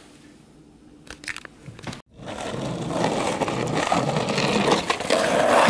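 Skateboard wheels rolling on a concrete sidewalk: a steady rolling noise that sets in suddenly about two seconds in and grows louder. Before it there is only faint room noise with a few light knocks.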